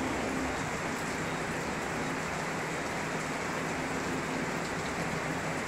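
Heavy tropical-storm rain falling steadily on dense trees, an even hiss that does not let up.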